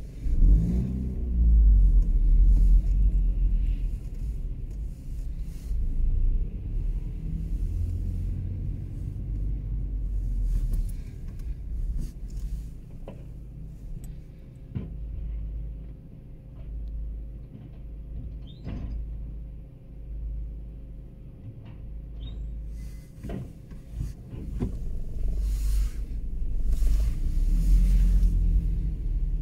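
Faun Variopress rear-loader garbage truck running, a low engine rumble that swells loud with a rising and falling pitch in the first seconds and swells again near the end. Several sharp knocks come in the middle stretch.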